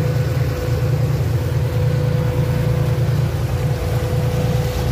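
Motor boat's engine running steadily under way, a low, even drone with a thin steady tone above it.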